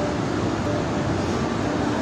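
Steady rush and rumble of a muddy flash-flood torrent from a glacial lake outburst, carrying debris down the channel: a dense, even noise with no breaks.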